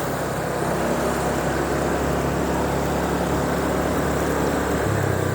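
Motorbike engine running steadily at low riding speed under a constant hiss of wind and road noise. The engine note shifts slightly near the end.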